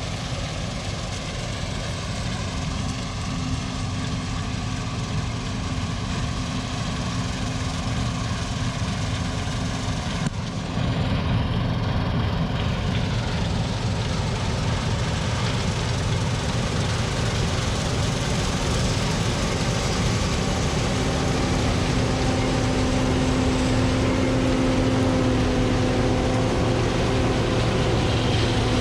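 Combine harvester running steadily under load while cutting soybeans: a continuous engine and threshing drone that gets a little louder about ten seconds in.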